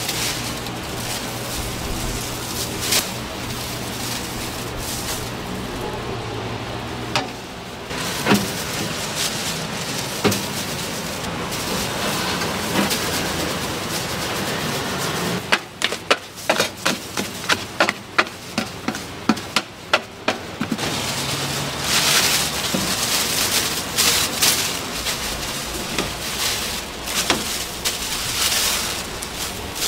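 Food being handled on a steel stall counter, with plastic gloves and a plastic bag rustling and a quick series of sharp knocks or clacks around the middle. A steady low hum runs underneath for the first several seconds.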